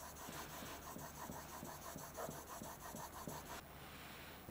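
Narex chisel in a honing guide being stroked quickly back and forth on the 3,000-grit side of a combination whetstone: faint, rhythmic scraping of steel on stone, about four strokes a second, that stops about three and a half seconds in.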